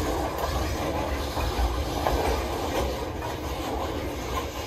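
Freight train cars rolling past: a steady low rumble of steel wheels on the rails, with a few sharp clacks as the wheels cross rail joints.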